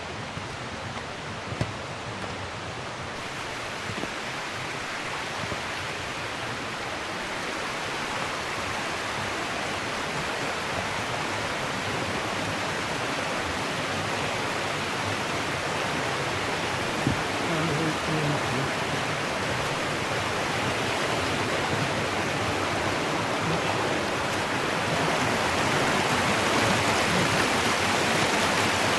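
Rushing water of a mountain stream and waterfalls, a steady hiss that grows gradually louder.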